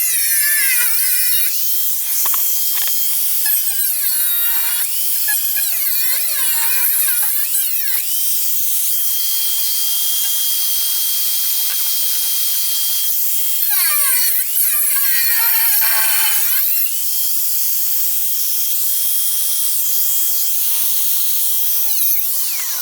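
A high-speed power tool cutting through sheet-steel bulkhead panel. Its whine holds a steady high pitch when running free and sweeps down and back up as it bites into the metal, most strongly a few seconds in and again about two-thirds through.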